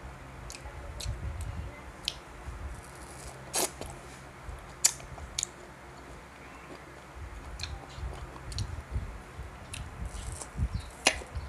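Close-up eating of Indian mango slices: soft wet biting and chewing, with sharp mouth clicks now and then.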